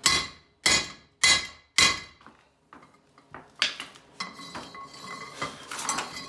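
Four sharp hammer blows about half a second apart on a steel pipe used as a driver, each ringing briefly, pressing a rear axle bearing down onto a Nissan Titan axle shaft. About three and a half seconds in, lighter metallic clattering and ringing follow.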